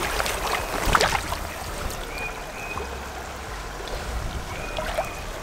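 Shallow creek water running steadily, with a sharp click about a second in and two faint short high tones later on.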